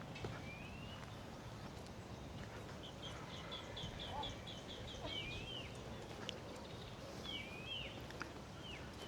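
Birds calling in woodland: a quick run of about eight short high notes a few seconds in, and several short sweeping calls that rise or fall, faint over a low background hiss.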